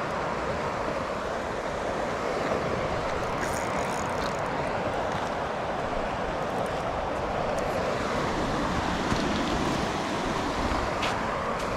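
Steady rushing noise of wind on the microphone mixed with fast-flowing aqueduct water.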